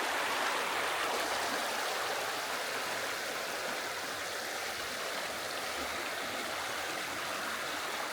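Mountain stream babbling steadily over rocks.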